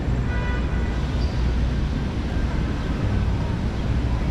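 City street traffic: a steady low noise of passing vehicles.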